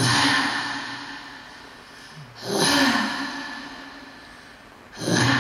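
Inuk throat singer making loud, harsh breaths into a microphone, three of them about two and a half seconds apart, each starting suddenly and trailing off slowly. The middle breath carries a low voiced tone that falls in pitch.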